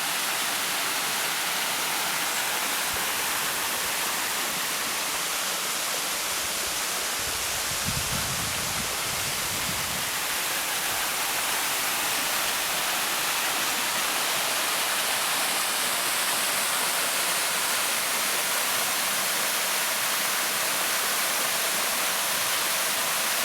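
Steady rush of falling water from the Tahana waterfall on the Iyon Stream, with a brief low rumble about eight seconds in.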